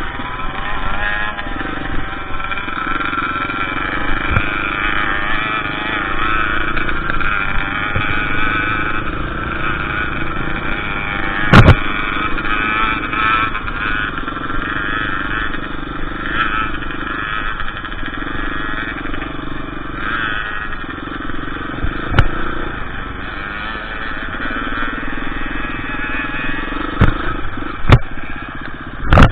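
KTM EXC 350 four-stroke single-cylinder dirt bike engine running while riding off-road, its revs rising and falling. Several sharp knocks cut through it, the loudest about twelve seconds in.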